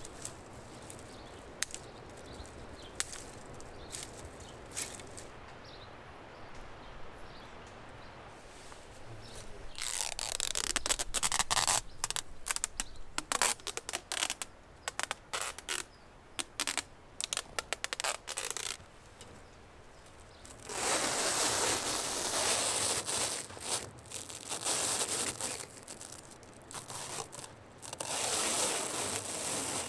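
Faint outdoor background with a few light clicks at first; about ten seconds in, adhesive tape is pulled off its roll in loud ripping bursts for around ten seconds. In the last third, plastic stretch wrap crackles and hisses in long pulls as it is unrolled off its roll.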